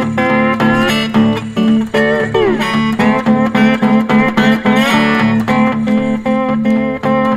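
Background music: plucked guitar with sliding notes over a steady bass.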